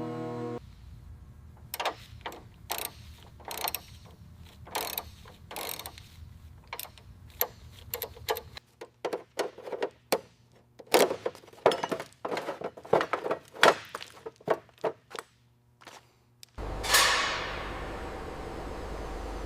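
Irregular metallic clicks and clacks of hand tools at work on a car being dismantled. About 17 seconds in, a sudden loud rushing noise fades away over a low rumble.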